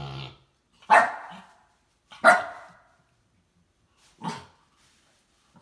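Husky-type puppy barking at a sleeping pig to rouse it. A low growl trails off at the very start, then come three sharp barks about a second and a half apart, the third one softer.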